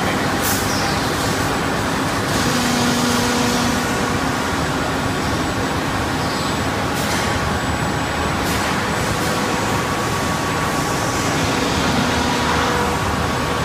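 Steady mechanical din of an automatic wood edge-gluing and panel-cutting line running, with faint steady motor hums and a few short high hisses.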